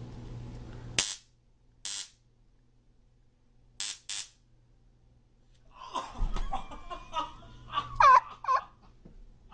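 Handheld stun gun crackling in four short bursts, then a thud and a man crying out and groaning as he is shocked.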